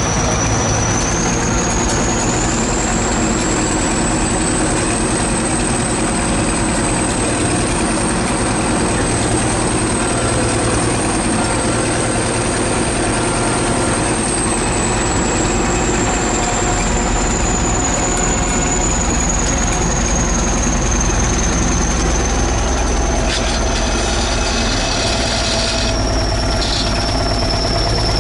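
ChTZ T-170 crawler bulldozer running: a steady, loud diesel engine drone with a high whine above it that rises in pitch over the first few seconds, holds, then slowly sinks.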